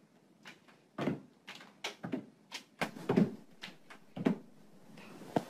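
A door banging and rattling over and over as a cat repeatedly leaps at it: about a dozen irregular knocks and thuds, heaviest in the middle.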